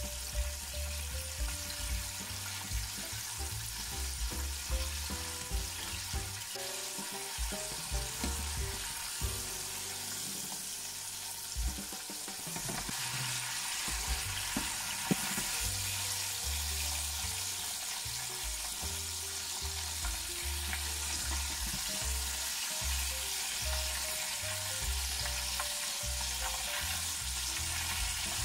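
Battered chicken drumsticks deep-frying in hot oil: a steady crackling sizzle that grows louder about halfway through.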